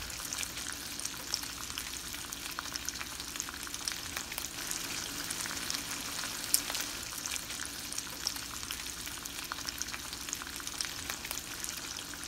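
Diced tomato, tomatillos and onion frying in hot oil in a pan: a steady sizzle with frequent small pops and crackles. A utensil stirs the vegetables near the end.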